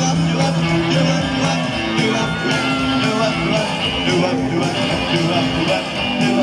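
Rock band playing live, with electric guitar chords held over a steady loud backing.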